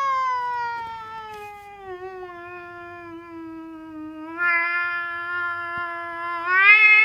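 A tabby cat giving one long, unbroken yowl, an annoyed warning as a hand reaches for its belly. The pitch sinks slowly, the yowl gets louder about halfway through, and near the end it climbs in pitch and grows louder still.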